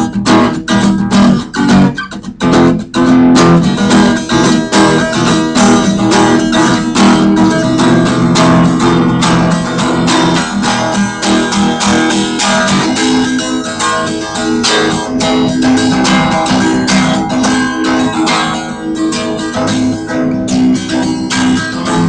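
Guitar music with quickly plucked and strummed notes in a steady stream.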